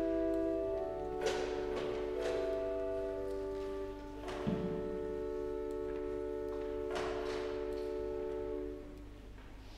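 Slow instrumental music in long held chords, which stops about nine seconds in. A few short knocks sound over it.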